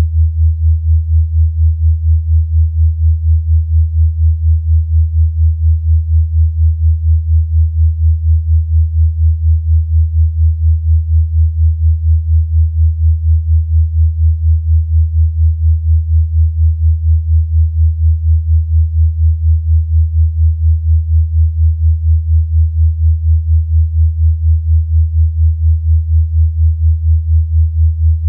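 Electronically generated low sine-wave tone, a 'healing frequency' track, held steady below about 100 Hz and pulsing evenly in loudness a few times a second.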